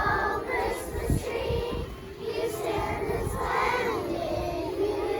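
A group of children singing together, several voices holding long wavering notes.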